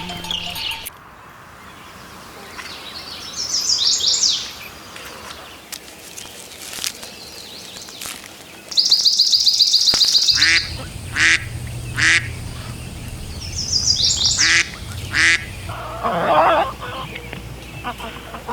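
Ducks quacking in several separate bouts, including a fast run of calls about nine seconds in.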